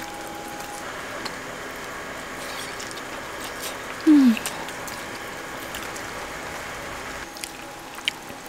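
Eating with wooden chopsticks from a small metal bowl: a few faint clicks over a steady background hiss, and one short, low, falling 'mm' hum about four seconds in.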